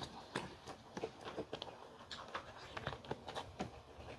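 A person eating: chewing with wet mouth clicks and smacks, several short irregular sounds a second.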